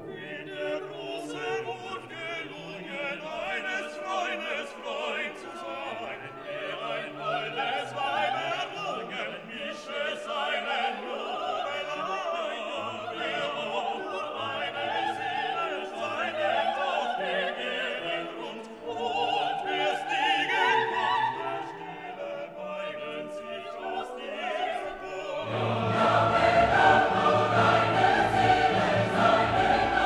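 Classical music: operatic singing and a choir over an orchestra. About 25 seconds in it swells louder and fuller.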